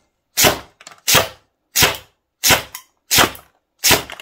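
Double Eagle M920A airsoft electric gun firing single shots in semi-auto, six sharp shots about 0.7 seconds apart, each followed by a faint tick.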